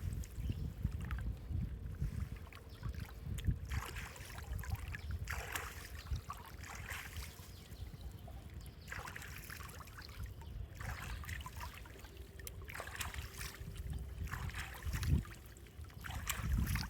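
Water splashing and sloshing in irregular bursts every second or so, over a low rumble of wind on the microphone.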